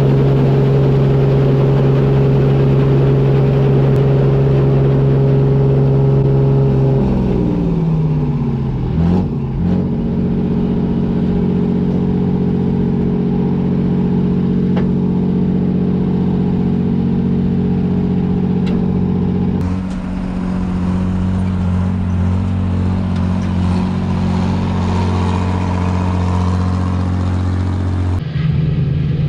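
Claas Dominator 85 combine harvester running, its engine a steady, loud hum. About seven seconds in the engine note slides down and settles lower, and the tone shifts again near twenty and twenty-eight seconds.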